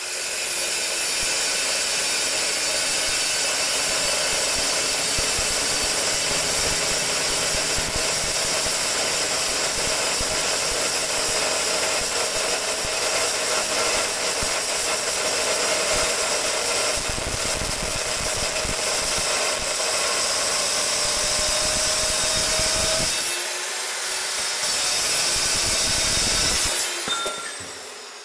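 Chop saw cutting a 35 mm steel shaft to length: the motor runs up at the start, the blade cuts steadily through the bar for over twenty seconds, and the saw spins down near the end.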